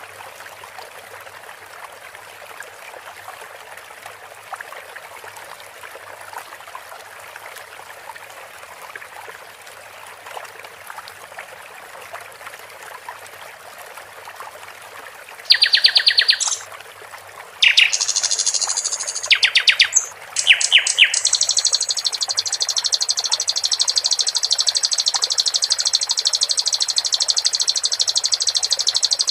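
Trickling water, then about halfway through a sikatan londo flycatcher starts singing loud, fast trills in short phrases, ending in one long rapid trill held for about eight seconds.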